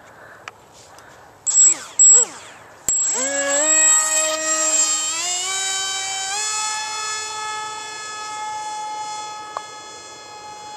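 Small brushless electric motor (24 g, 3000 kV Turnigy) on a Wing Wing flying wing, spinning a 5043 pusher propeller that the owner calls a little unbalanced. There are two short revs around two seconds in, then the throttle opens sharply about three seconds in for launch. The whine climbs in steps, then holds one steady pitch and slowly fades as the plane flies off.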